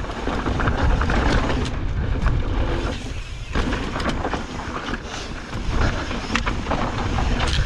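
Mountain bike riding fast down a dirt trail: wind rushing over the microphone and tyres on dirt, with the bike rattling and knocking over bumps. The sound eases briefly about three seconds in.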